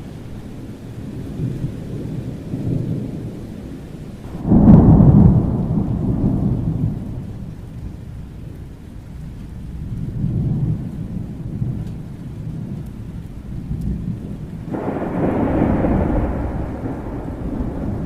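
Thunderstorm: steady rain under continuous low rolling thunder. A sharp loud thunderclap comes about four and a half seconds in and rumbles away over a couple of seconds, and another loud peal rolls in near the end.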